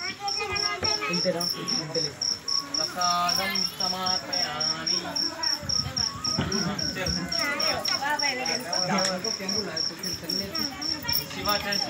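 A cricket chirping steadily, a high even chirp about four times a second, over low talking voices.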